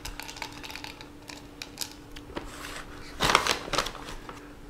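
Bits of bacon dropped by hand into a small metal baking pan, a scatter of light ticks and clicks, with a louder rustle of the plastic bacon bag about three seconds in. A faint steady hum runs underneath.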